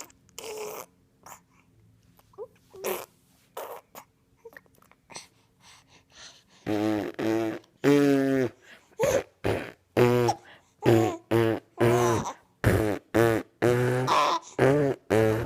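Mouth fart noises: lips blown into a wet, buzzing raspberry. There are a few faint ones at first, then from about seven seconds in a rapid string of around fifteen short, loud buzzing blasts.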